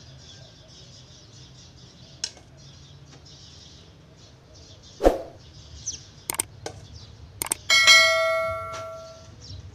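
A spoon clicking and knocking against china dishes a few times, then one loud clink about eight seconds in that rings like a small bell for about a second and a half.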